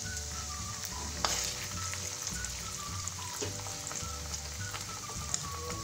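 Onion, capsicum and green chilli pieces sizzling steadily in hot oil in a nonstick kadhai as chilli sauce is spooned in, with one sharp tap about a second in.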